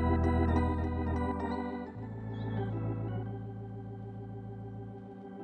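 Organ music: sustained chords over a held bass note, which changes to a new note about two seconds in, growing a little softer toward the end.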